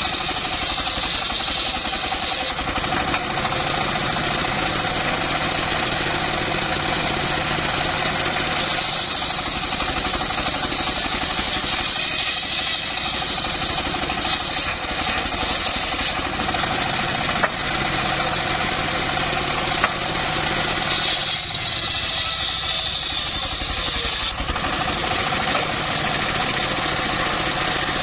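Engine-driven homemade circular sawmill running steadily, its higher blade sound growing and fading every few seconds, with a couple of short clicks.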